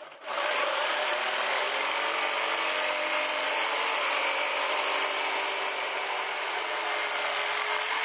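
Jigsaw cutting a circle out of a plywood sheet: the saw starts just after the beginning, then runs steadily as the blade saws through the wood.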